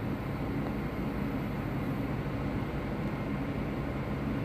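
Steady low hum of an idling vehicle engine, even throughout, with no sudden sounds.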